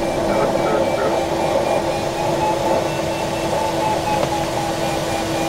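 Steady rush of airflow inside a Stemme S10 motorglider's cockpit in flight, with a steady hum and a variometer's repeating beeps that slowly drift up and down in pitch.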